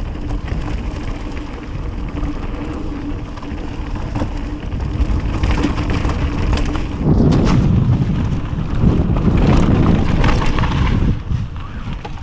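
Wind rushing over the microphone and mountain-bike tyres rolling on a dirt singletrack, with the bike rattling over the rough trail. The rumble grows louder and rougher a little past halfway through, then eases near the end.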